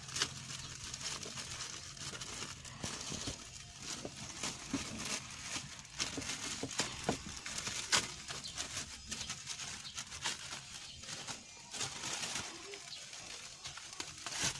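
Thin plastic wrapping crinkling and rustling in irregular handling bursts with sharp crackles as a new cabin air filter is unwrapped.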